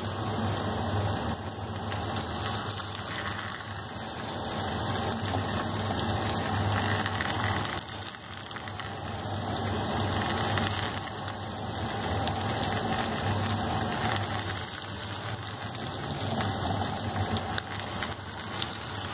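Olive oil and onion sizzling in a clay tajine as marinated chicken drumsticks are laid into the hot oil, a steady hiss that swells and eases over the seconds, with a low hum underneath.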